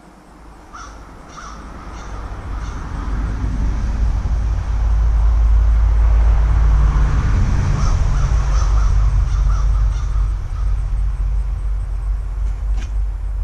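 A loud low rumble that builds over about five seconds and then slowly eases, with a bird calling repeatedly above it: about four calls early on and a run of about six more a little later.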